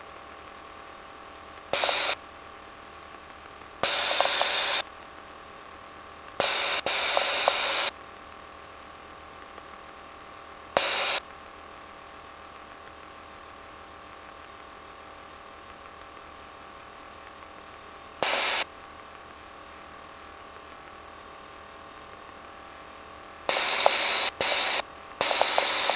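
Cockpit intercom and radio feed of an RV-9A light aircraft: a steady low hiss and hum, broken about eight times by bursts of noise that switch in and out abruptly, each lasting from a fraction of a second to about a second and a half.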